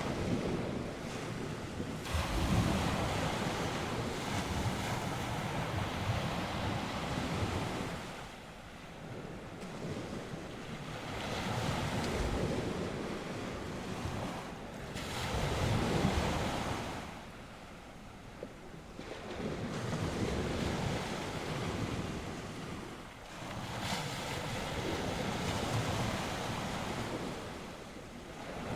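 North Sea surf: waves breaking and washing up the shore in about four long surges, each swelling over several seconds and then falling back. Wind is buffeting the microphone.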